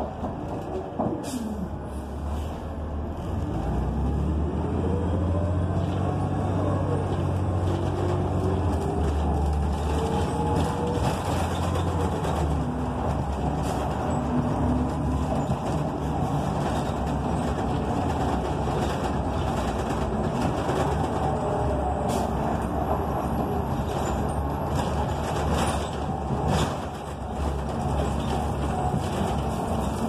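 Inside the cabin of a moving 2008 NABI 45C transit bus: its Cummins Westport ISL G natural-gas engine and Allison B400R automatic transmission are pulling under acceleration. A whine rises and drops several times in the first ten seconds or so as it shifts. Steady road noise continues after that, with a few sharp clicks.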